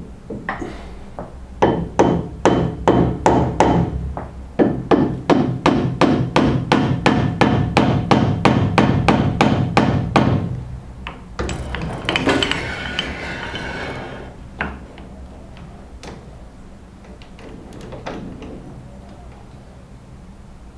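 Rapid, evenly spaced hammer blows, about four a second, for roughly nine seconds, followed by a couple of seconds of rasping scraping and a few lone knocks.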